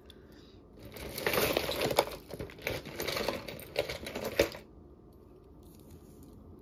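Plastic bag crinkling and small pieces of costume jewelry clinking as a bag of jewelry is rummaged through, for about three and a half seconds starting about a second in, with several sharp clicks among the rustling.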